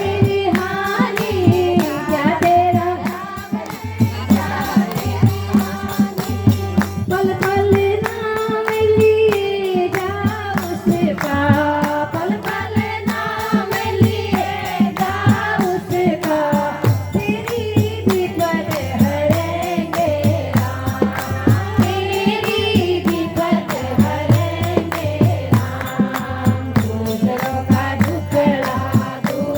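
Hindu devotional bhajan sung by a woman, a flowing melody line over a steady, regular hand-drum beat with jingling percussion.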